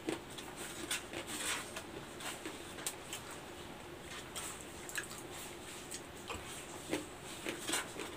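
Eating sounds from soft-serve sundae ice cream: irregular wet lip smacks and slurps off a plastic spoon, with the spoon scraping and tapping in the paper cup.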